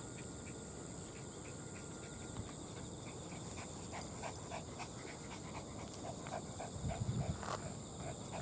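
A dog panting in quick, even breaths, starting a few seconds in, over a steady high drone of insects.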